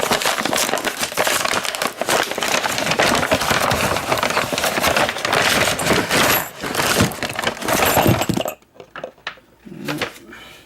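Packaging crackling and rustling as a package is torn open and handled. The noise stops abruptly about eight seconds in, followed by a few light knocks.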